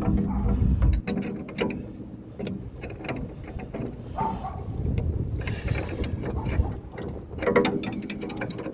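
Metal hand tools working on a nut: a wrench clicking and clanking against steel suspension hardware in irregular bursts, busiest near the start and again near the end.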